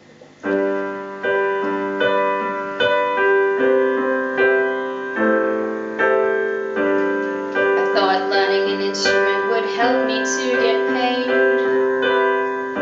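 Roland digital keyboard on a piano sound playing a song's intro: steady block chords, struck about once a second, starting about half a second in.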